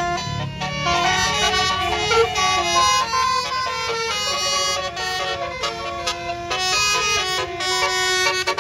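Bus telolet 'basuri' horn, a multi-trumpet musical air horn, playing a quick melody of shifting notes over the low rumble of the bus's engine.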